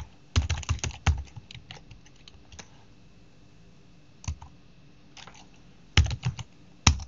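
Typing on a computer keyboard in short bursts: a fast run of keystrokes, then scattered single keys, then a few hard key presses near the end.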